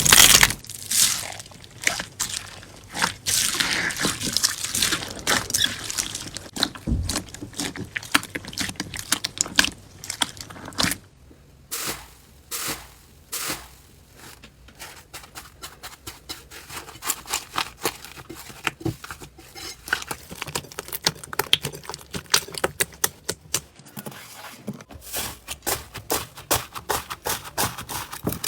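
Slime being squeezed and pressed by hand, giving a run of small crackles, pops and crunches, sparser around the middle.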